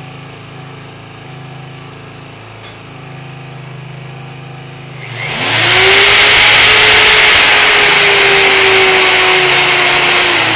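Electric drill with a 1.5 mm bit, starting about halfway through with a quick rising whine and then running loud and steady at speed as it drills into a broken saxophone neck screw to make a hole for extracting it. A low hum comes before it.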